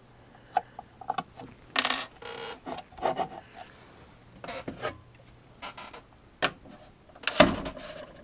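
Small metal clinks, taps and short scrapes from handling a screw and the metal foot of an iMac stand. A louder knock comes near the end as the computer is gripped and lifted.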